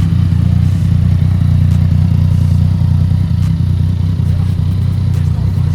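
Yamaha MT-09 three-cylinder engine idling steadily.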